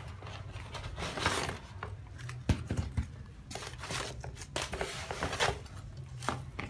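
Cardboard box flaps and plastic packaging rustling and scraping in gloved hands as a new power drill is unpacked, with a sharp knock about two and a half seconds in.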